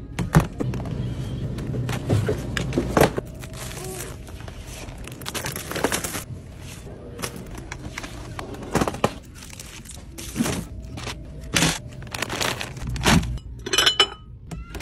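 Store goods being handled and dropped into a plastic shopping-cart bin: a run of knocks and clatters from boxes and bottles, with packaging rustling. Near the end, ceramic cereal bowls clink with a brief ring as they are lifted off the shelf.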